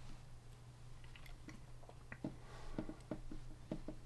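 Faint small clicks and taps of a thin hex key and the metal heater block of a 3D printer hot end being handled while a grub screw is tightened, coming more often in the second half. A low steady hum sits underneath.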